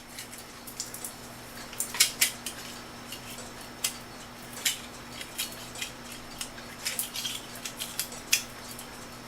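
Irregular sharp metallic clicks and clinks from a clock movement being handled. The mainspring is being wound tight by hand so a zip tie can go back on to hold it.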